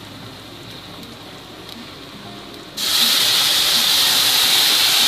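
Blended tomato purée poured into a hot pot of grated carrots, hitting the hot pan with a sudden loud sizzle about three seconds in that then carries on as a steady hiss.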